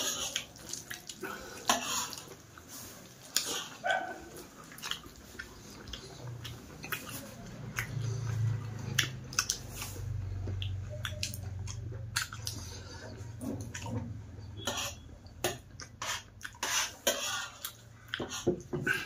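A person eating by hand, close to the microphone: wet mouth clicks and smacks while chewing, with fingers working food on a steel plate. A low hum runs through the middle.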